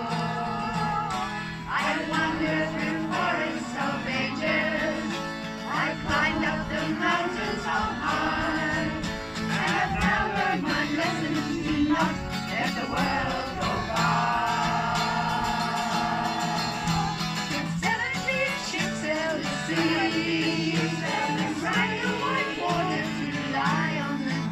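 Music: a folk or country-style song with singing over steady accompaniment.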